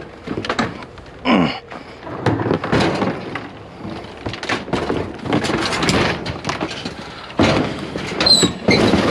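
Clattering knocks, thuds and scraping of bulky discarded scrap appliances being handled and heaved, loose metal parts rattling, with a brief high squeak near the end.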